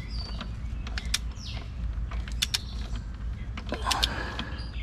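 A long torque wrench, set to about 9 ft-lb, tightening the throttle-body bolts: a few sharp clicks, some in quick pairs, with light creaks and squeaks from the tool.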